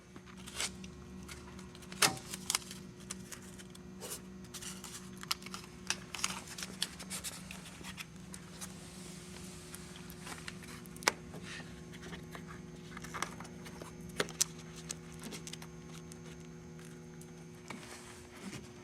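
Hands working a rubber door weatherstrip into a truck's door opening: scattered faint taps, clicks, rustles and scrapes as the strip is pressed and folded into place, over a steady low hum.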